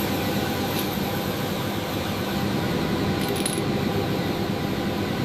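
Engine running steadily, a constant mechanical noise with no change in speed, and a brief faint metallic jingle about three seconds in.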